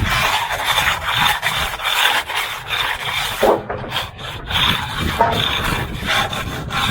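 A hand concrete finishing tool scraping and rasping along fresh concrete in quick repeated strokes.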